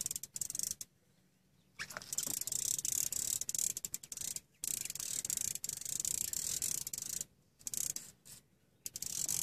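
Fishing reel clicking rapidly in long runs with short breaks, line being worked against a hooked striped bass.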